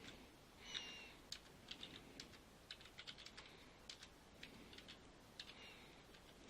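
Faint, irregular typing on a computer keyboard, key clicks coming in uneven bursts.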